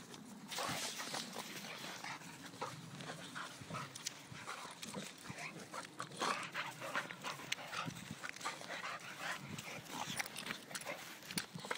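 An Alapaha bulldog and a blue Staffordshire bull terrier play-fighting: a busy run of short, rough dog noises, one after another, starting about half a second in.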